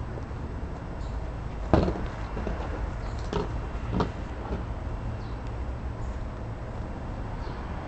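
Low steady outdoor rumble, with a sharp knock a little under two seconds in and two fainter knocks around three and a half and four seconds in.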